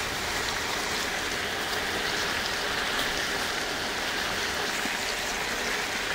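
Fresh curry leaves frying in a large pot of hot oil with sliced onions, small shallots and dried red chillies: a steady, dense sizzle.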